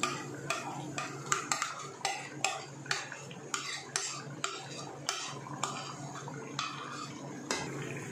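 A spoon scraping and tapping against a plate, knocking a paste of onion and yogurt off it into a pan, about twice a second.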